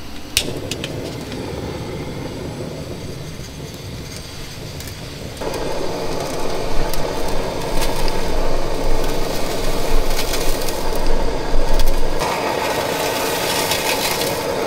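Handheld butane kitchen torch hissing as its flame sears food in metal bowls. A few sharp clicks near the start, and a louder steady hiss sets in about five seconds in.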